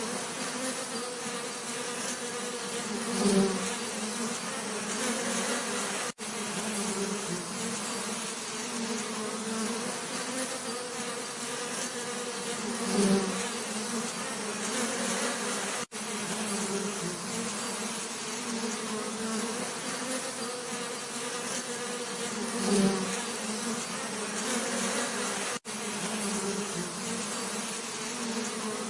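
Bees buzzing in a steady hum, with one louder buzz swelling up about every ten seconds. The same short recording repeats as a loop, with a brief dropout at each seam.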